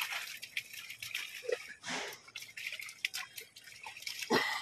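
Irregular small splashes and drips of water as live fish flap in a seine net gathered in shallow pond water and are lifted out by hand.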